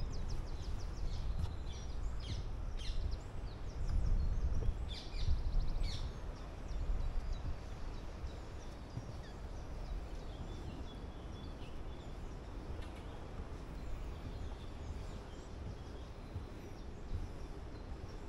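Small birds singing and calling, with quick chirps and trills in the first six seconds and fainter, sparser calls after, over a low rumble that eases about seven seconds in.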